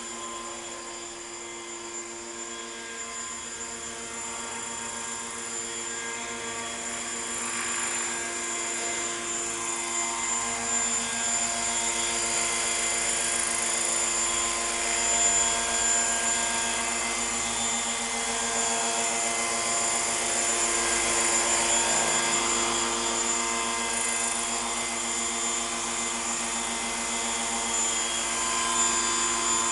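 Radio-controlled Hurricane 550 model helicopter in an Agusta A109 scale fuselage, running with a steady high whine over the rotor hum. It grows louder over the first half, then holds level.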